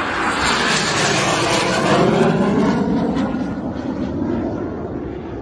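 Departing aircraft passing close after take-off: a loud engine noise that slides down in pitch and fades steadily as it moves away.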